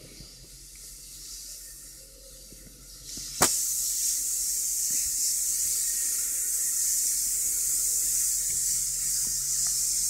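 Soft handling rustle, then a sharp click about three and a half seconds in, after which a steady high hiss sets in.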